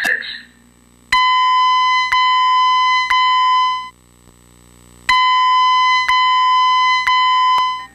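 Fire alarm voice-evacuation speaker sounding the evacuation tone in the temporal-three pattern: three beeps, a pause of about a second, then three more beeps. The beeps are loud, electronic and at a steady pitch, and they signal a building evacuation between the spoken messages.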